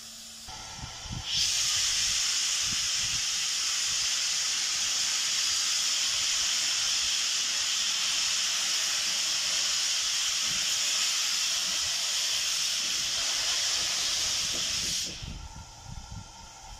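Steam locomotive blowing off steam through its safety valves, the sign of a boiler at full pressure. A loud, steady hiss starts suddenly about a second in and cuts off sharply near the end.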